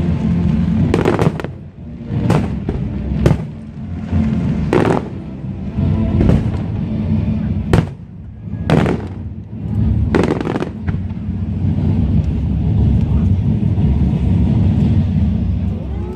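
Fireworks display: aerial shells bursting in a string of sharp bangs, about eight in the first ten seconds, over a steady low rumble, with the bangs thinning out near the end.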